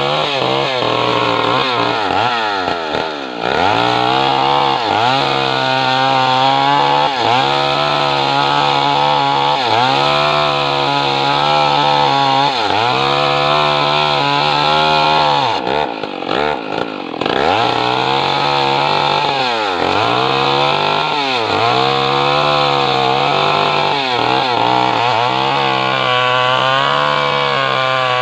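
Stihl MS 250 two-stroke chainsaw cutting lengthwise along a log at full throttle. The engine pitch sags as the chain bites and climbs back again every couple of seconds. Its loudness briefly falls away about halfway through.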